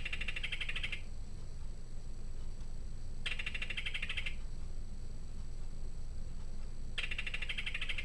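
National Audubon Society quartz singing bird clock's speaker playing its recorded belted kingfisher call, in this clock's lower-pitched version: three dry rattles about a second each, a few seconds apart. A low steady hum lies underneath.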